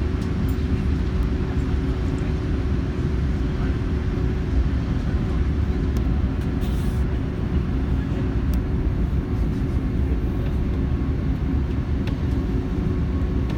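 Steady engine drone inside the cabin of a British Airways Airbus A380, low and even, with a constant hum running through it.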